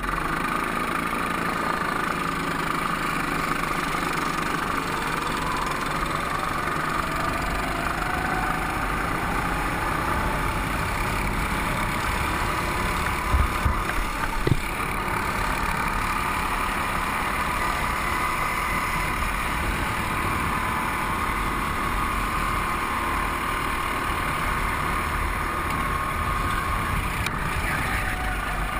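Go-kart engine running steadily on track, its pitch gliding slowly up and down with throttle. A few brief thumps come about halfway through.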